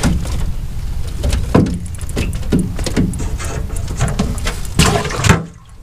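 A run of irregular knocks and thumps over a steady low rumble, with the loudest knocks about one and a half and five seconds in; the sound drops away shortly before the end.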